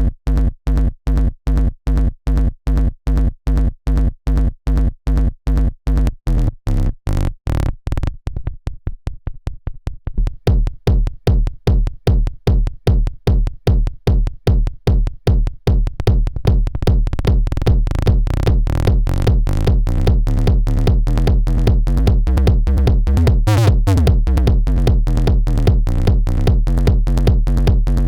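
Techno beat playing back from Ableton Live: a steady, evenly pulsing kick pattern that thins out and stutters faster around the middle, then comes back as a fuller, denser groove with more layers.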